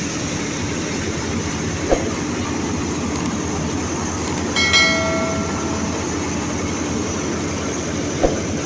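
Tractor-driven paddy thresher running steadily. Two sharp knocks come through, about two seconds in and near the end, and a brief ringing tone about halfway.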